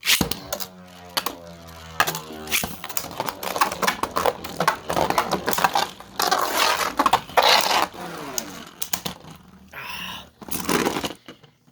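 Beyblade spinning tops clashing in a stadium: a sudden start, then a rapid run of sharp clicks and hard hits, with a whirring whine that slides in pitch over the first couple of seconds and scraping between the hits.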